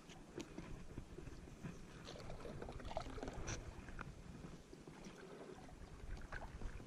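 Water moving around a kayak on a river, with scattered light clicks and knocks over a low rumble.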